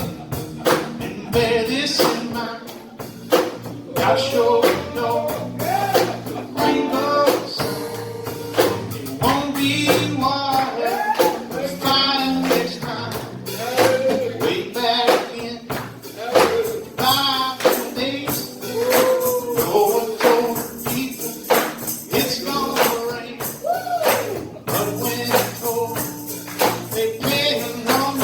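Music: a song with singing over a steady tambourine beat.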